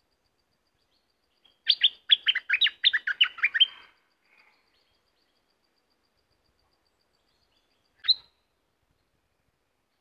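Bulbul (southern Thai 'nok dok taeng') singing a quick phrase of about a dozen sharp, falling whistled notes lasting about two seconds, then one short note near the end.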